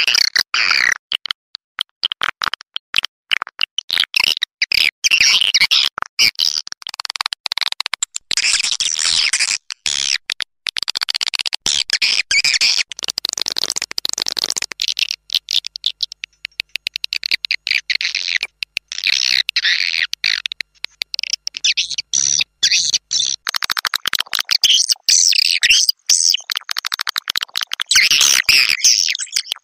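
Swiftlets twittering: dense, rapid, high chirping calls that keep going, broken again and again by brief gaps.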